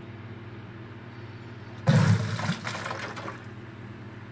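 A sudden rush of mains water blasting out of an open copper pipe into a plastic bucket, starting about two seconds in, strongest for under a second and then tapering off. The surge pushes out the bread plug packed in the pipe.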